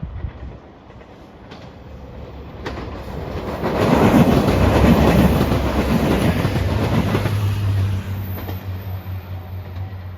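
JR Shikoku 2700 series diesel limited express passing at speed: the rush of wheels on rail builds, is loudest from about four to seven seconds in, then eases to a steady low engine hum.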